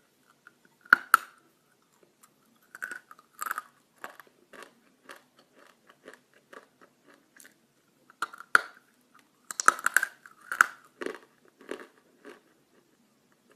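Pieces of dry clay being bitten and chewed close up: several sharp cracking bites, with softer irregular crunching between them.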